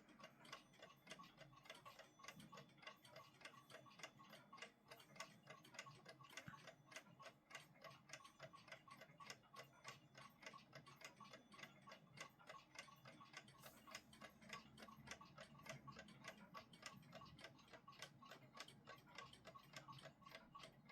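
Faint, quick, even ticking of a WWI-era "Kriegswecker" mechanical alarm clock running; the alarm is not ringing.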